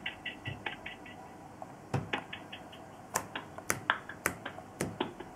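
Light clicks and taps from handling a mobile phone on a wooden desk: a quick run of small high ticks in the first second, then sharper single clicks about every half second.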